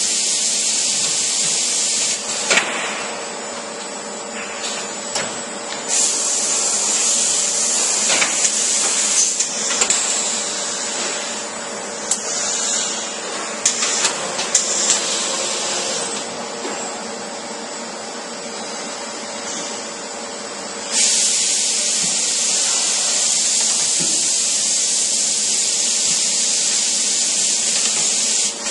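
Busellato CNC woodworking machining centre running: a steady hum under a loud hiss that cuts off about two seconds in, returns from about six to ten seconds, and starts again suddenly about twenty-one seconds in. Sharp clicks and knocks come in between.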